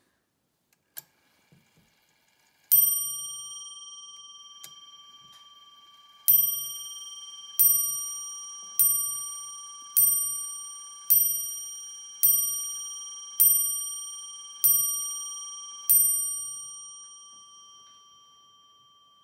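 A Breguet clock's striking hammer hits its bell ten times: one strike, a pause of about three and a half seconds, then nine strikes about 1.2 seconds apart. Each strike rings on with a clear tone, and a light mechanical knock comes with each blow. A few small clicks come before the first strike.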